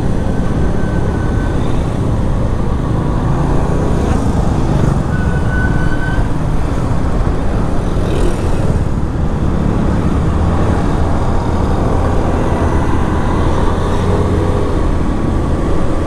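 Yamaha FZ motorcycle riding through city traffic: steady engine and road noise with heavy wind rumble on the microphone. Two short high beeps come through, about half a second in and again about five seconds in.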